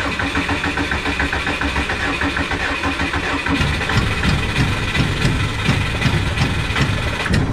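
Subaru engine cranking on the starter with an even rhythmic churn; about three and a half seconds in it begins to fire unevenly and sputter, trying to catch without settling into a run. This is a no-start engine on the edge of firing.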